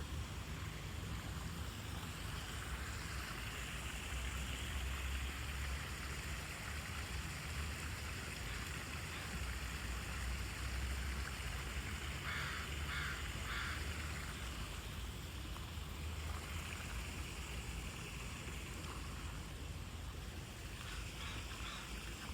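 Outdoor ambience: a steady low rumble and hiss, with a bird giving three or four short harsh calls in quick succession about twelve seconds in, and a few fainter calls near the end.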